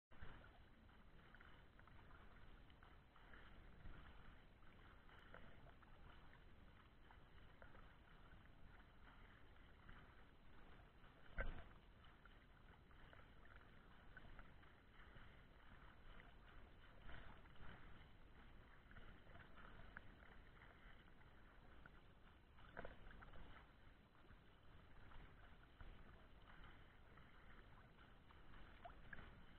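Faint water sloshing and lapping at the surface, with the splashing of a swimmer's front-crawl strokes. Two brief, louder knocks stand out, about a third and about three quarters of the way through.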